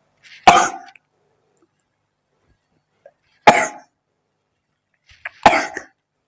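A woman sneezing three times, a few seconds apart. Each sneeze is a sudden loud burst with a short catch of breath just before it. The sneezes are set off by nasal snuff she has sniffed.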